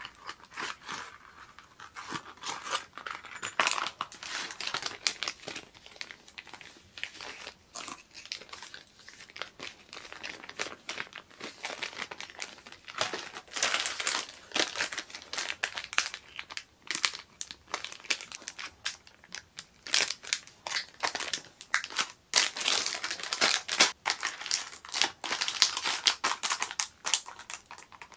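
Clear plastic packaging crinkling and crackling as packets of silicone resin molds and a vinyl zip pouch are picked up and handled. It comes in irregular handling noises that grow denser and louder in the second half.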